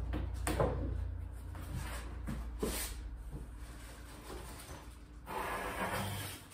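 Cardboard shipping box being opened and rummaged through: a few knocks and scrapes of cardboard, then about a second of cardboard rustling near the end.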